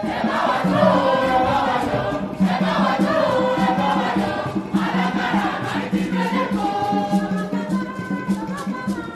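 Music: a group of voices singing in phrases, with a steady low note and a regular shaker rhythm underneath.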